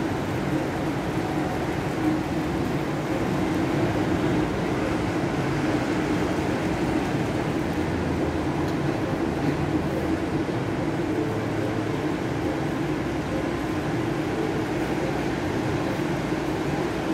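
Ocean surf: a steady, even rush of waves breaking on the shore, with no single wave standing out.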